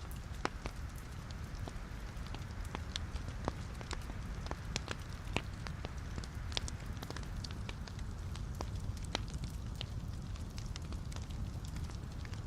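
Wood logs burning in a fireplace: a steady low rumble of flames with frequent irregular sharp crackles and pops.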